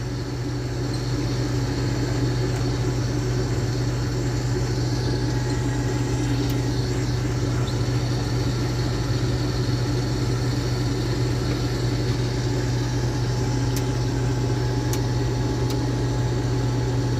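Combine harvester running steadily while harvesting soybeans: a constant, even low drone of engine and machinery with no change in speed.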